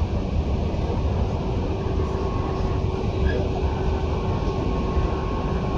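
Tobu 10030 series electric train running, heard from inside the car: a steady low rumble of wheels and running gear with a faint steady whine.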